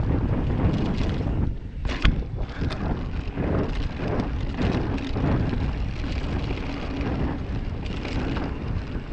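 Wind buffeting the bike-mounted camera's microphone over the rumble of mountain bike tyres rolling fast on a dirt and gravel trail, with a sharp knock about two seconds in.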